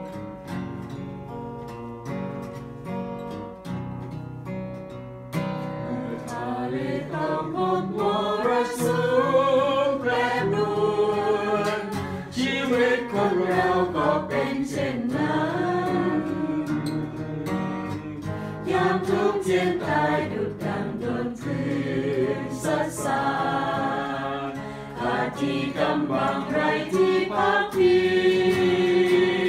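Acoustic guitar strummed alone for the first few seconds, then a small group of voices joins in about six seconds in, singing a Christian worship song in unison with the guitar.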